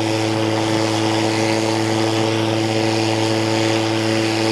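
EGO 56-volt cordless electric lawn mower running while being pushed through grass, its motor and blade giving a steady, unchanging hum with an airy whoosh over it. It is really quiet compared to a gas mower.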